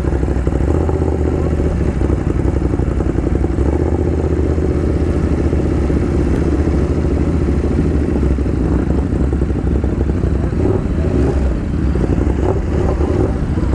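Ducati Monster 821's L-twin engine running steadily at low revs, with the engines of other motorcycles close around it.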